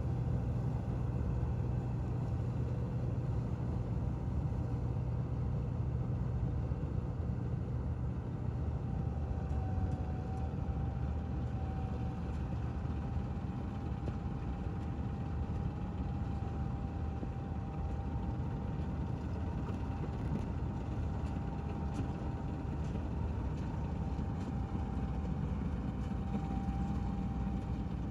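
Balkar combine harvester running steadily while harvesting paddy, a constant low engine hum with a thin steady whine above it; the machine is running well.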